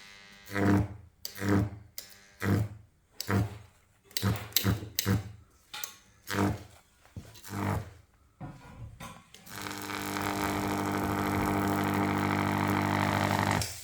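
Microwave oven transformer's high-voltage arc buzzing in a series of short bursts, then held as a steady, loud mains-frequency buzz for about four seconds before cutting off suddenly at the end.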